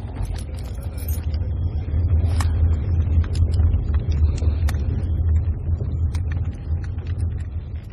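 Steady low rumble of a moving car heard from inside the cabin, with scattered small clicks and rattles.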